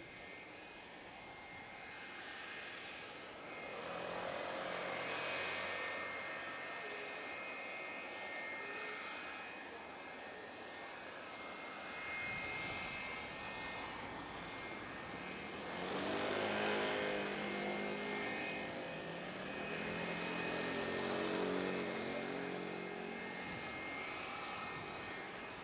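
Tail-mounted jet engines of a McDonnell Douglas MD-80-series airliner running at taxi power: a steady high whine over a broad rumble that swells louder twice as the plane taxis and swings onto the runway.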